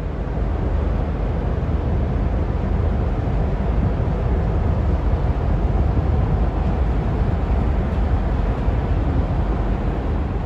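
Steady low rumble of the chemical/oil tanker Algonova's engine and propeller as the ship passes close by.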